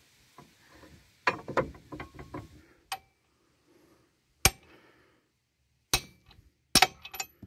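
Steel hammer striking the end of a car's drive shaft to knock it out of the wheel hub: three sharp metal-on-metal blows with a brief ringing after each, spaced about a second apart in the second half. These come after a stretch of clinking and clattering metal.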